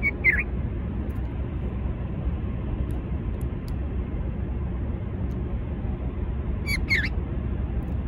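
White-spectacled bulbul calling twice: a short burst of quick falling notes at the very start and another about seven seconds in, over a steady low rumble.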